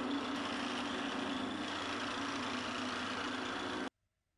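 Small electric wood lathe running steadily, spinning a beech handle while a cloth is held against it to polish it: a steady hum with a hiss over it. It cuts off suddenly near the end.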